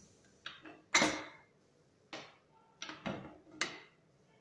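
Aluminium pressure cooker being opened after its pressure has been released: the whistle weight is lifted off and the lid is twisted free, giving about six sharp clicks and knocks, the loudest about a second in.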